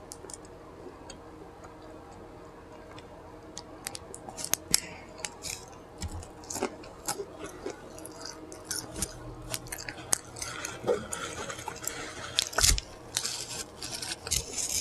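Close-miked mouth sounds of someone chewing fast food, with sharp wet smacks and clicks. They start about four seconds in and come thicker toward the end.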